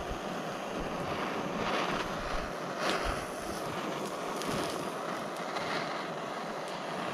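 Handheld kitchen torch burning with a steady hiss, its flame toasting marshmallows.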